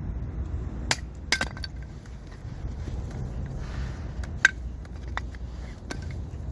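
A handful of sharp metallic clinks and knocks, some with a brief ring, the loudest about four and a half seconds in, over a steady low rumble.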